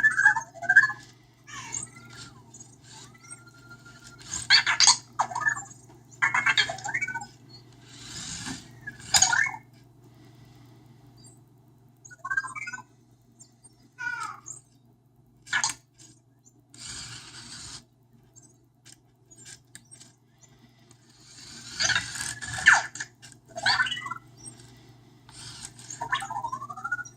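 Anki Vector robot making its short electronic chirps and beeps, some gliding up or down in pitch, mixed with brief noisy whirs and clicks from its motors as it moves about.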